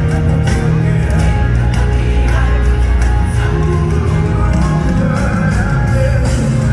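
Live gospel worship music with a heavy, sustained bass line and singing voices over it.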